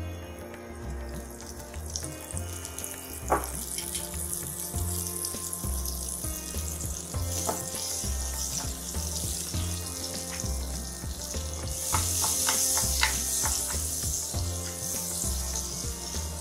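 Butter melting and sizzling in a nonstick frying pan, a steady hiss that grows louder about twelve seconds in as the butter foams, with a few light clicks around then.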